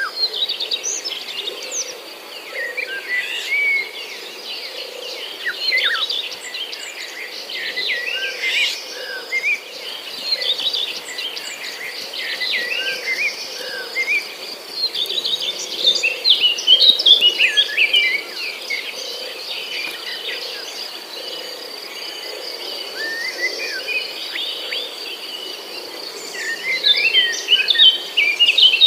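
Several birds chirping and calling in quick, overlapping phrases, busiest midway and near the end, over a steady high-pitched insect drone.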